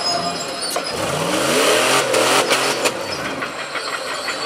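Off-road 4x4 race vehicle's engine revving hard under load as it climbs a dirt mound, rising in pitch about a second in. A few sharp knocks come around the middle.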